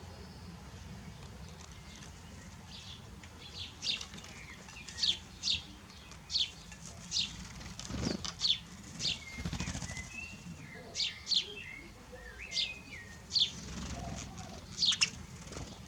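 A small bird calling: short, sharp chirps that drop in pitch, repeated irregularly about once a second from a few seconds in, with a few lower warbled notes in the middle.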